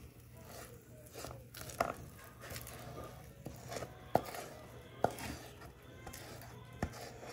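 Spatula scraping thick, sticky buriti sweet in a pan and dish, with soft scrapes and a handful of sharp, light knocks of the utensil against the pan.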